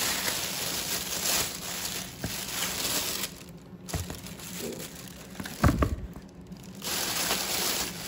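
Plastic shopping bags rustling and crinkling as bananas are pulled out and laid in a plastic bowl. The rustling pauses midway, and one short dull thump falls about two-thirds through.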